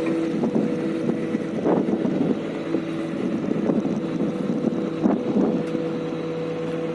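Excavator diesel engine running steadily with a constant whine over it, and a few short knocks.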